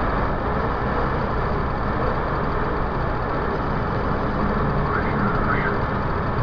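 Steady engine and road noise of a moving vehicle, picked up by its dashcam.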